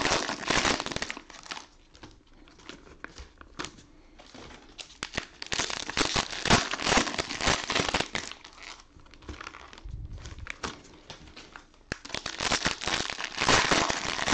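Plastic bags and cellophane-wrapped trading-card packs crinkling as they are handled, in several bursts with quieter stretches between.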